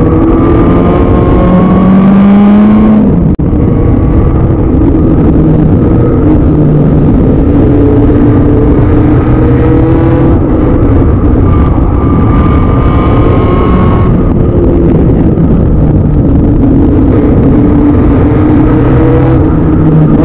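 Formula Junior single-seater racing car's engine heard onboard at racing speed, with a steady rush of wind noise underneath. The engine note climbs as it revs, breaks off sharply about three seconds in and comes back at a lower pitch, then climbs again later.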